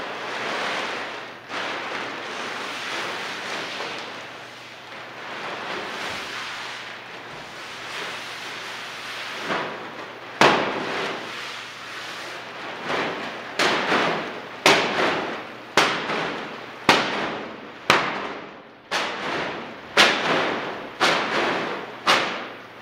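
A steady rushing noise, then from about ten seconds in a run of sharp bangs, roughly one a second, each with a short echoing tail.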